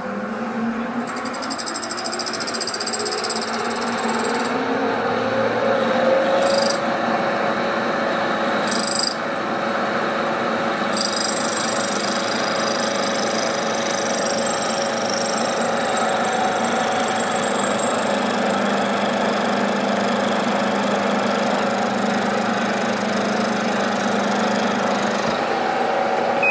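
Bridgeport vertical milling machine running, with an end mill cutting along the side of a metal locomotive crosshead held in the vise. Steady machine hum and cutting noise, building up with a tone rising in pitch over the first few seconds, then holding steady.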